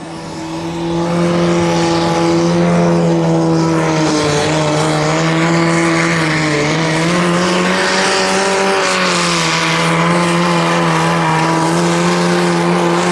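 Compact diesel pulling tractor (HABA Deer) running flat out under full load as it drags a weight-transfer sled. The engine note builds over the first second, then holds steady with a couple of small dips.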